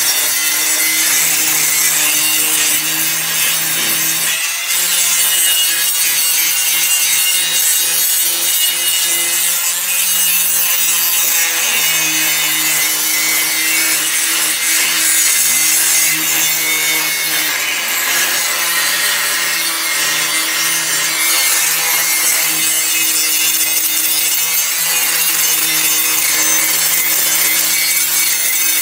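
Handheld angle grinder with an abrasive disc grinding rust off a steel crosscut saw blade: a steady motor whine under loud, harsh grinding hiss. The motor note dips about four seconds in and wavers now and then as the disc works along the blade.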